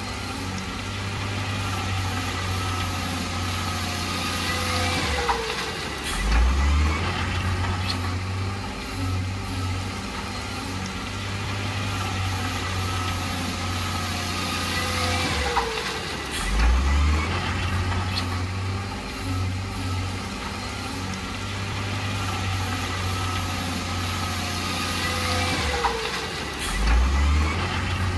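Diesel engine of heavy earthmoving machinery running steadily. About every ten seconds, three times, a falling whine is followed by a brief, louder low surge in the engine.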